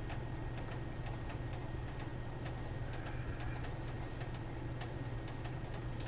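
Casio Pro Trek PRT-50 watch ticking with light, steady clicks as its quartz movement keeps time, over a steady low hum.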